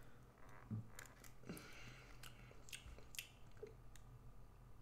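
Faint chewing and mouth sounds of a person eating, with a few soft, scattered clicks over a low steady hum.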